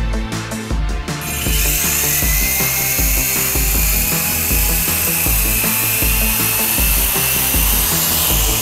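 Small electric motor of a Majorette Iron Man 3 radio-controlled toy helicopter whining as its rotors spin up. The whine starts about a second in and rises slowly in pitch, over background music with a steady beat.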